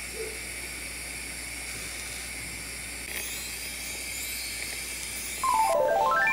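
Pancake sizzling in a nonstick frying pan, a steady hiss. About five and a half seconds in, a short run of quick tones steps down in pitch and then back up.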